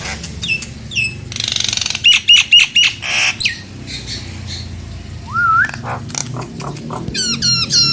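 Nias hill myna calling: loud whistles and harsh squawks mixed with quick runs of repeated notes, and a single rising whistle about five seconds in.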